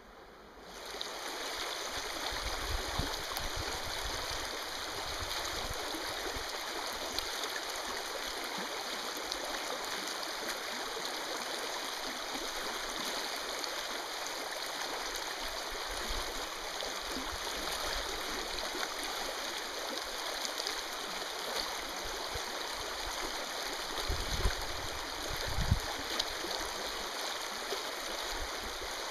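Steady rush of a shallow stream's water flowing over a riffle, coming up about a second in, with a few low bumps near the end.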